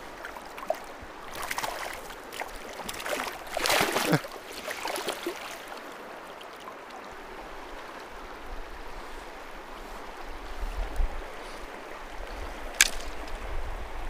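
River current flowing, with a few seconds of splashing and handling noise from about one to five seconds in, and a single sharp click near the end.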